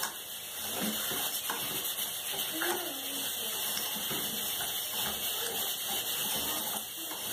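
Rice and chopped garlic sizzling steadily in hot oil in a pot, being sautéed before the water goes in. A spoon stirring in the pot adds a few light knocks.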